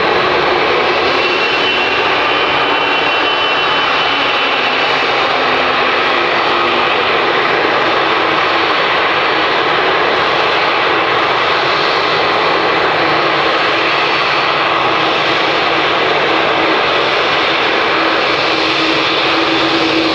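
Boeing 787's General Electric GEnx turbofan engines running at low taxi power as the airliner rolls by: a steady jet rush with a faint high whine, with no rise to takeoff thrust.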